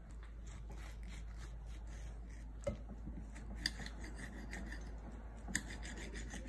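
Small kitchen knife dicing a ripe tomato on a ceramic plate: a run of soft repeated cutting strokes, with a few sharper clicks.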